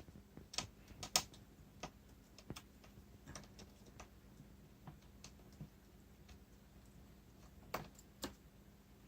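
Faint, scattered light clicks and taps at irregular intervals from hands handling the laptop's display assembly and small screws, a little louder about a second in and again near the end.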